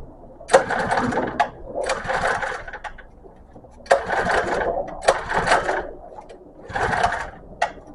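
Pull-starting a small engine by its recoil starter: five rope pulls, each a short burst of cranking, and the engine does not catch.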